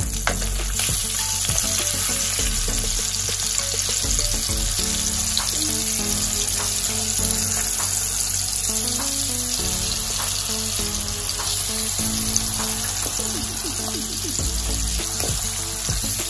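Masala-coated salmon pieces frying in a pan, a steady sizzle.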